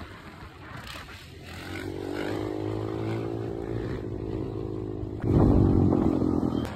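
Dirt bike engine running at steady revs, held on the throttle through a wheelie, getting suddenly louder about five seconds in as it comes close.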